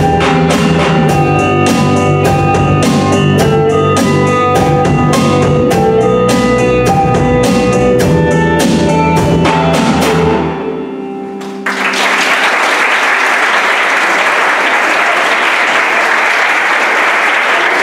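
Live band of drum kit, electric guitar, electric bass and a small twelve-string instrument playing the last bars of a song over a steady drum beat. The band stops about ten seconds in and the last chord rings away. The audience then bursts into applause that carries on.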